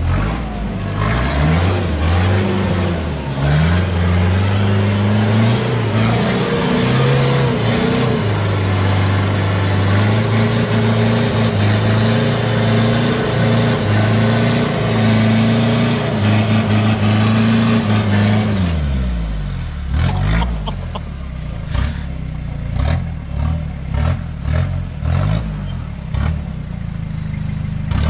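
Modified Toyota Hilux engine revving under load as the truck crawls up rock ledges on large mud tyres, the revs rising and falling and held high for most of the first two-thirds. About eighteen seconds in it eases off to lower revs, then comes in a run of short throttle blips.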